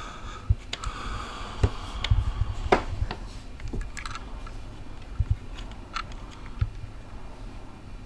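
Irregular small clicks and light knocks from soldering tools and drone parts being handled on a work surface, with a cluster of knocks around two to three seconds in.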